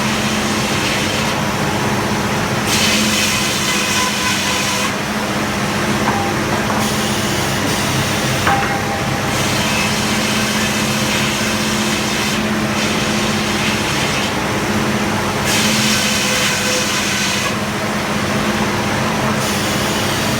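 Frick circular sawmill cutting wood: a power unit runs steadily while the blade's high, rasping cut swells and fades every few seconds as it passes through the log.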